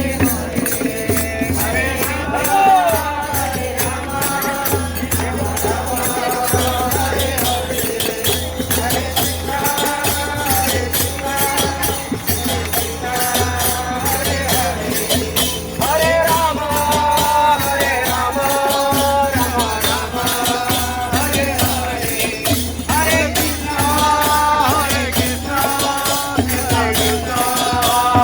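Group kirtan: voices chanting a devotional melody in phrases over steady jingling percussion and a regular drum beat.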